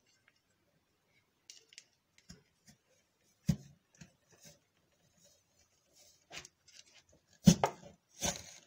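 Plastic french-fry cutter knocking and clicking on a plastic cutting board as a raw potato is pressed through its steel wire grid: scattered short knocks, the sharpest about three and a half seconds in and twice near the end.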